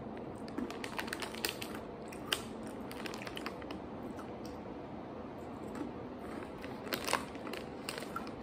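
Crunching of imo-kenpi, hard candied sweet-potato sticks, being chewed: many small crisp cracks, with a few louder ones about seven seconds in.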